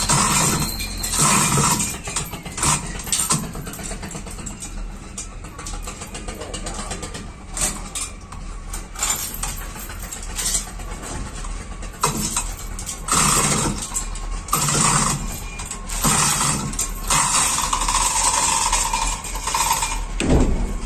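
An engine running steadily, with louder surges that come and go.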